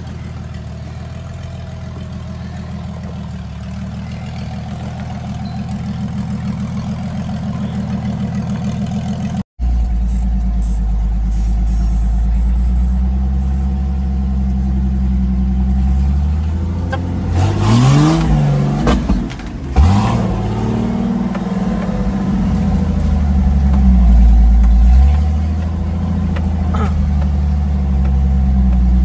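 Engine of an off-road Suzuki Jimny labouring up a steep dirt climb, growing louder as it comes closer. After a cut, the engine is heard from inside a Jimny's cab, revving in quick rising bursts about two-thirds of the way through and swelling louder again near the end.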